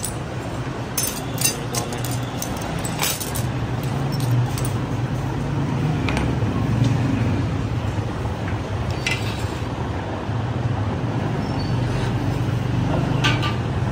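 Small pieces of cut mirror glass clinking now and then as they are handled, a few light separate chinks, over a steady low hum.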